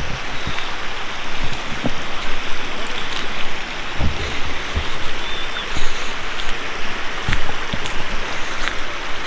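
Steady rushing hiss of running water, with scattered small taps and knocks.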